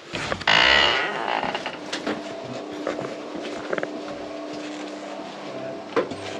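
A wooden shop door pushed open, with a loud scraping rush about half a second in. Then a steady low hum with a few light knocks, one sharper near the end.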